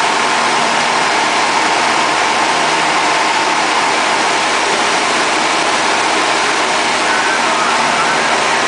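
Small single-engine plane's engine and propeller running at a steady cruise, a loud, even drone heard from inside the cockpit.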